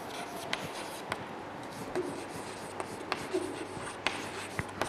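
Chalk writing on a blackboard: irregular sharp taps and scratches as the letters are drawn, over a faint steady room hiss.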